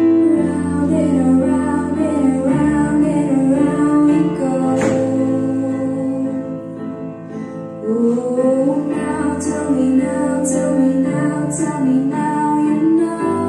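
A teenage girl singing a pop song into a handheld microphone over an accompaniment of sustained chords, the bass notes changing every few seconds.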